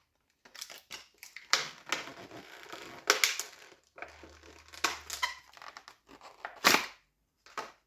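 Packaging being handled and opened, crinkling and rustling in irregular bursts, with two sharp clicks near the end.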